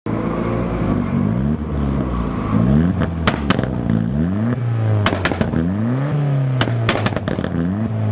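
Ford Escort RS engine revved over and over, its pitch climbing and dropping about once a second, with a string of sharp cracks from about three seconds in. It starts suddenly.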